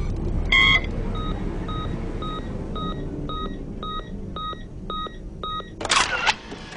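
Telephone keypad beeps: one short tone, then a run of about nine short beeps, about two a second. Near the end comes a brief, loud, noisy burst with a wavering pitch, over a steady low rumble.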